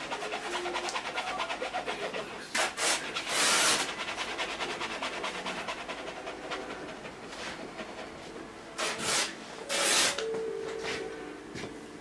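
A painting tool scrubbing and scraping oil paint across a stretched canvas. There are quick rubbing strokes at first, then two louder, longer scrapes: one about three seconds in and another about nine seconds in.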